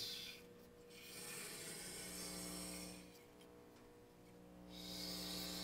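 Camera slider carriage rolling along its rail on its bearing wheels while a cotton swab rubs against the wheels to clean them: a soft hiss, in two passes with a short pause between.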